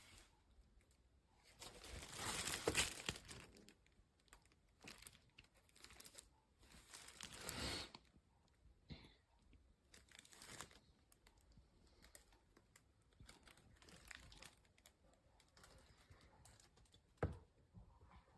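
Faint handling noises: crinkling and rustling in irregular bursts, louder twice in the first half, with scattered light clicks and one sharper knock near the end.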